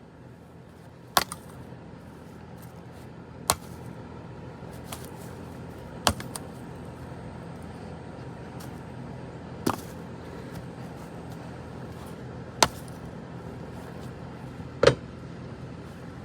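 A golf club striking a plastic walkie-talkie: six sharp whacks, two to three seconds apart, with the last one the loudest. A steady low hum runs underneath.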